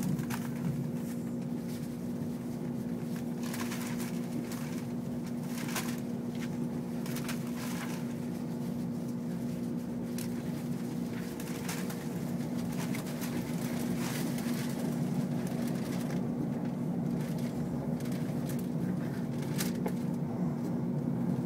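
Cabin noise of an ICE high-speed train running at speed: a steady low rumble with a constant hum and a few faint clicks.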